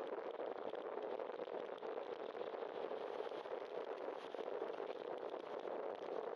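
Steady road noise of a bicycle riding along wet pavement: tyre hiss on the wet road and wind over the camera, with cars driving past on the wet street.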